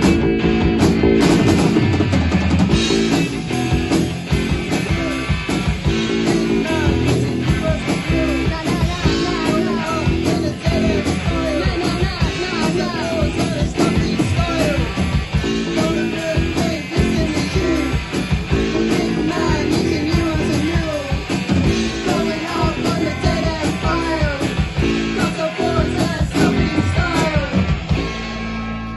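Rock music with guitar and drums, with a melodic line that may be a singing voice, dropping in level just before the end.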